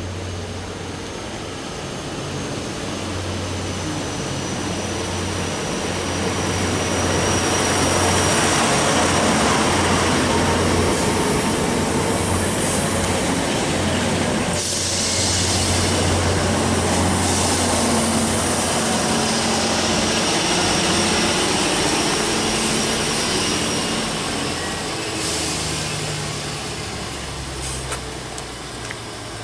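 Diesel multiple unit pulling into the platform, engines running with a steady low hum and a faint high brake squeal sliding down in pitch over the first several seconds. The sound builds as the train comes alongside, holds, then eases near the end as it settles at the platform.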